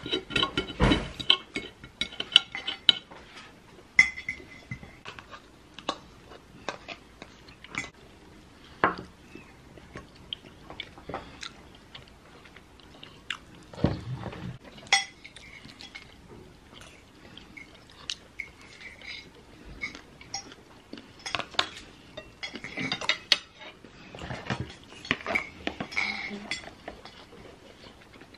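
Metal knife and fork clinking and scraping on a ceramic plate while cutting food, with close-up chewing between. The sharp clicks come in clusters, busiest in the first few seconds and again near the end.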